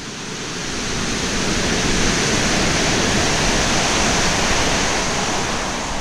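Loud rushing of churning floodwater, an even roar with no distinct tone. It swells up over the first couple of seconds, holds and eases off near the end.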